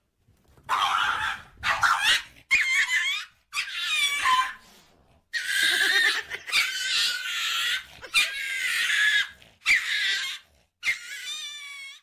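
Small dog yelping and squealing: about nine high cries in a row, each about a second long and wavering in pitch.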